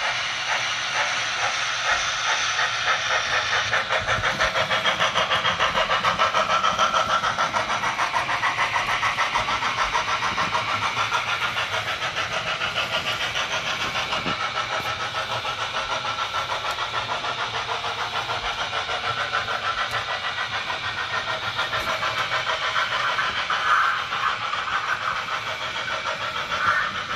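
Steam chuffing from an H0 model Class 01 steam locomotive's sound decoder, a quick, even beat of exhaust beats heard through the model's small speaker as it runs.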